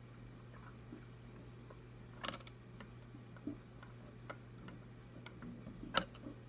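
Light, scattered clicks and taps of a flathead screwdriver and small screws on a Telecaster's metal control plate, with two louder clicks about two seconds in and near the end, over a steady low hum.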